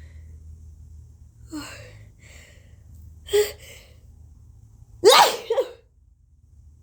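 A woman's forced sneeze: a few sharp, gasping breaths build up, then a loud, high-pitched sneeze bursts out about five seconds in and trails into a second, shorter burst. Her nose is irritated by allergies.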